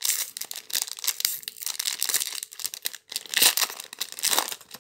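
Foil booster-pack wrapper being torn open and crinkled by hand: dense crackling with sharp snaps, pausing briefly about three seconds in, then louder tearing bursts near the end.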